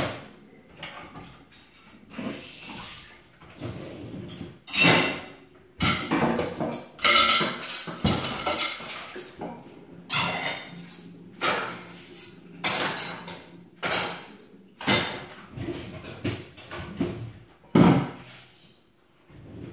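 Plates, glasses and cutlery clattering and knocking at irregular intervals as dishes are rinsed and stacked into a dishwasher rack.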